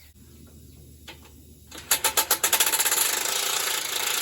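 Impact wrench hammering on an engine mounting bolt, starting about two seconds in with rapid blows that quickly run together into a steady loud rattle.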